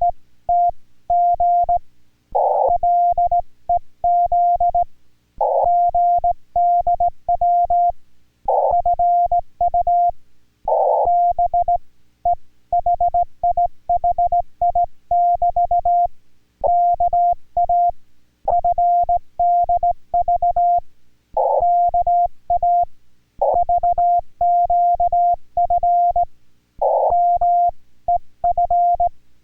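Morse code in CW from an amateur radio transceiver: a single steady tone keyed on and off in short and long elements, spelling out Korean Morse code in a radio contact.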